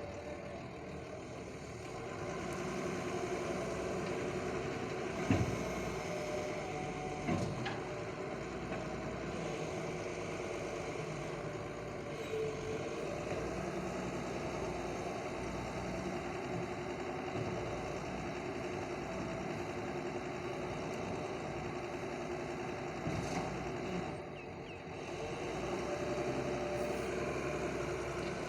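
Engine of heavy site-clearing machinery running steadily, with two sharp knocks about five and seven seconds in.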